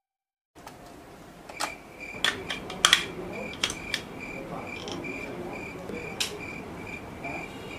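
A cricket chirps in a steady, even pulse, about two to three chirps a second, starting half a second in. Over it come a handful of sharp clicks and taps as a light bulb is fitted into its plastic holder among dry twigs, with one more click about six seconds in.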